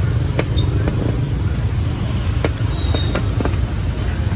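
Busy street ambience: a steady low rumble of motor traffic with background voices and a few sharp clicks.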